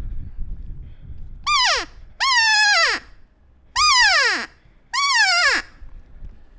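Four elk cow mews, each a whiny call that slides down in pitch. The first is short and the next three are longer.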